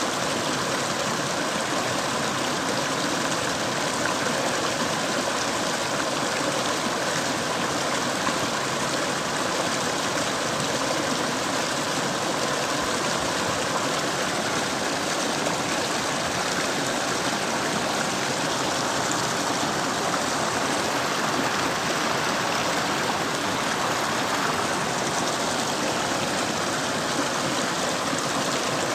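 Mountain stream water flowing over rocks: a steady, even rush with no change throughout.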